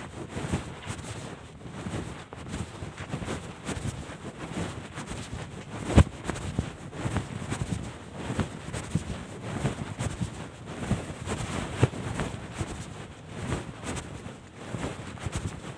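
Irregular rumbling and rustling noise right on the microphone, with a sharp knock about six seconds in.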